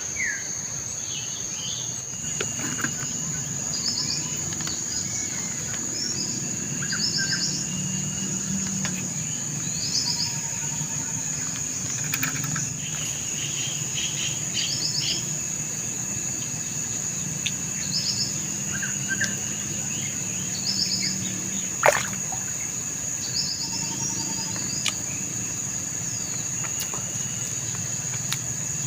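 Tropical forest ambience by a river. A steady high-pitched insect drone runs under repeated short bird chirps, over a low steady rush. About two-thirds of the way through comes a single sharp click.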